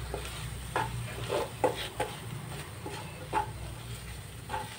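Wooden spatula stirring and scraping crushed coconut and diced green plantain around a non-stick pan: a run of irregular short scrapes over a steady low hum.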